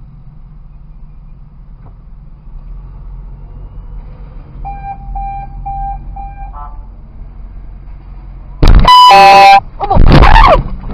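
A car horn sounds four short beeps about half a second apart, then blares in one long blast of about a second, while a car engine idles underneath. Right after the long blast comes another very loud burst whose pitch bends up and down, like a shouted voice.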